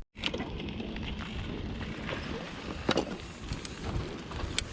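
Mountain bike riding noise: steady rumble of wind on the camera microphone and the bike rolling over the trail, with a few sharp clicks and knocks.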